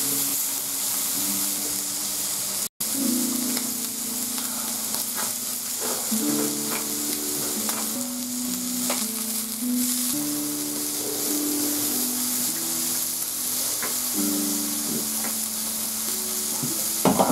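Slices of wild boar meat sizzling on an electric grill plate, a steady hiss, under background music of slow held notes. A few light clicks sound, and the sound drops out briefly about three seconds in.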